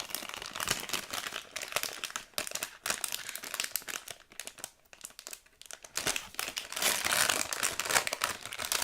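Blind-bag packaging crinkling and tearing as it is pulled open by hand to get a squishy toy out, in irregular crackly rustles that grow denser and louder near the end.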